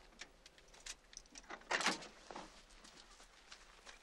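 A car door opening and people climbing out onto a gravel road: small clicks and rustles, with a short, louder scrape just under two seconds in and a smaller one right after.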